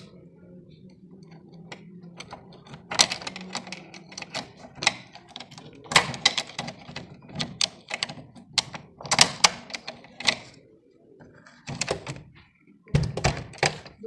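Flat-blade screwdriver clicking, scraping and rattling against the metal inside a broken lock cylinder as it prys and turns at the mechanism: irregular runs of sharp metallic clicks and knocks, with a low steady hum behind.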